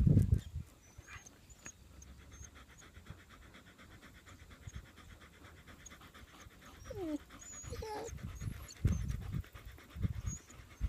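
A dog panting in bursts, with a short falling whine about seven seconds in.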